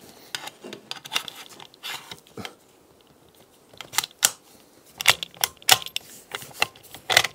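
Loading a De Lisle carbine: a series of sharp metallic clicks and clacks as the magazine and action are handled, with a quiet spell in the middle and the clicks coming thicker in the second half.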